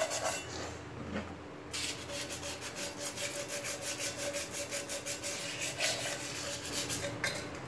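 Scrubbing paper rubbed quickly back and forth on the blackened bottom of a stainless steel milk pan, an even rasping scrub of many short strokes that eases off briefly about a second in. The scrubbing is wearing the burnt-on black stains off the pan.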